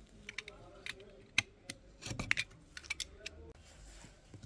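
Irregular small sharp clicks and short scrapes of hand work with tools on a laptop's small cooling fan.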